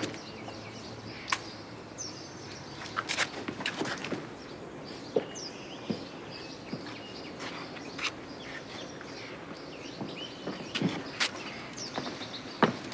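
Scattered footsteps and light knocks, with birds chirping faintly a few times over steady outdoor ambience.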